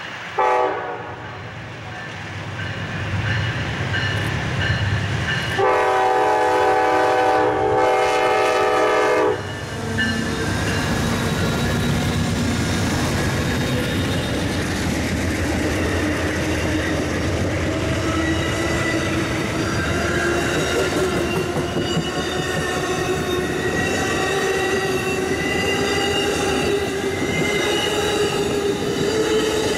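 Amtrak Empire Builder passenger train passing close by. The diesel locomotive's horn sounds a short blast, then a long blast of about four seconds, as it approaches. Then the locomotive goes by and the bi-level Superliner cars roll past with steady wheel-on-rail noise and a slowly rising wheel squeal.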